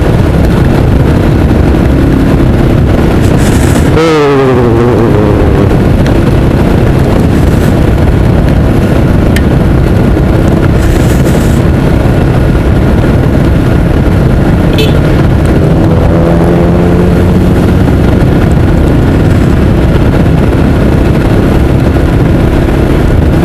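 Motorcycle riding at road speed: a steady engine note buried in heavy, constant wind noise on the microphone. About four seconds in, an engine pitch falls sharply, and around sixteen seconds another rises.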